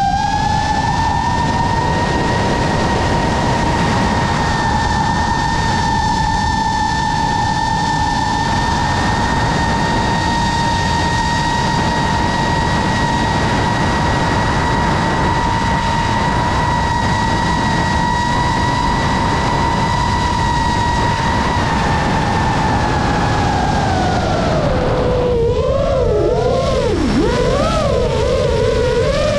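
FPV quadcopter motors and propellers whining at a steady high pitch over a loud rush of air, heard from the drone's own onboard camera. About twenty-two seconds in the whine falls as the motors slow, wavers quickly up and down for a few seconds, then climbs again near the end.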